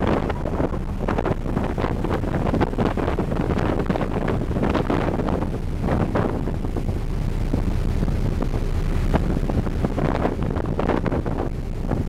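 Wind buffeting the microphone in uneven gusts over a steady low rush.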